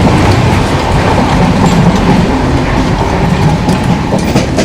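Passenger train carriage running at speed: a loud, steady rumble and rattle, with scattered sharp clicks from the wheels and rails.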